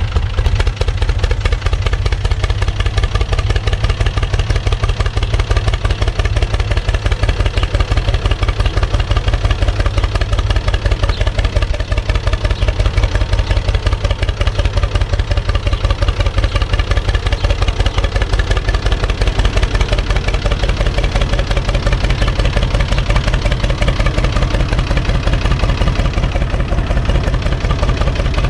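UTB 445 DT tractor's four-cylinder diesel engine idling with a steady, even beat.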